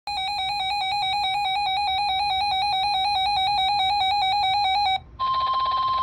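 RadioShack 12-254 weather radio sounding its alert: a loud, fast two-note electronic warble. About five seconds in the warble stops, and after a brief gap the radio's speaker opens on NOAA Weather Radio's steady 1050 Hz warning alarm tone over radio hiss, the signal that a warning is about to be read.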